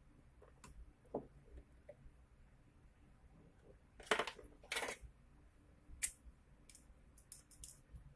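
Light clicks and knocks of small parts being handled, with two louder scraping strokes about four and five seconds in, a sharp click about a second later, and a quick run of small clicks near the end.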